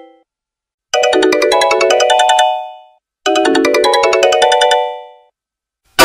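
Sony Ericsson phone ringtone: a short electronic melody of quick stepping notes that ends on a held chord and fades out. It plays twice, with a short silence between.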